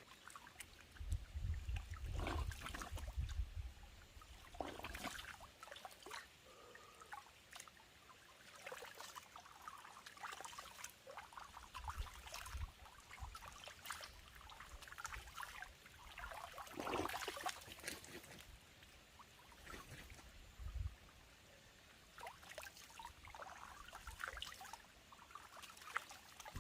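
Footsteps and rustling of a hiker walking down a leaf-strewn mountain trail, irregular crunches and brushes with low rumbles on the microphone near the start.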